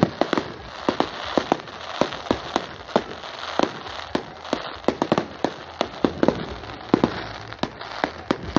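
Fireworks exploding in a display: many sharp bangs and pops at an irregular pace, several a second, over a steady crackle.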